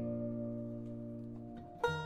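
Background music: acoustic guitar notes ringing out and fading, with a new plucked chord near the end.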